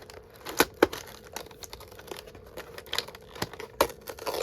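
Small cardboard box and plastic packaging being opened and handled: irregular crinkling and rustling with sharp clicks and taps.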